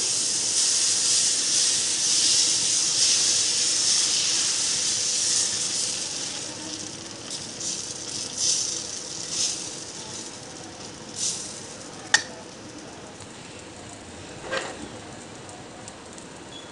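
Dosa batter sizzling on a very hot iron tawa as it is poured and spread with the bowl. A loud steady sizzle that fades over the first ten seconds as the batter sets, leaving scattered crackles and one sharp click about twelve seconds in.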